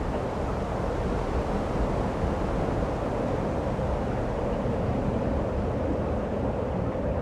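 Steady wind rushing and buffeting the microphone, over the wash of surf.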